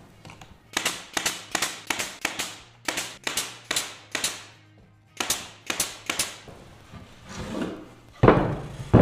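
Pneumatic brad nailer firing into 4x4 lumber in quick runs: about a dozen shots, a short pause, then about five more. Near the end comes one heavy wooden thud as the assembled trestle base is set upright on the bench.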